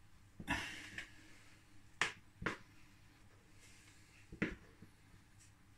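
About five sharp plastic knocks and clicks, with a short scrape after the first: a plastic dough scraper striking and scraping around a plastic mixing bowl as the dough is worked loose and turned out.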